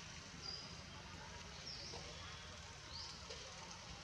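Faint, short high-pitched chirps that dip and rise, repeating about once every second and a bit, over a steady low rumble.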